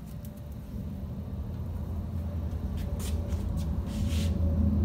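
Milling machine running with a steady low hum that grows gradually louder, with a few short hissing sounds about three and four seconds in.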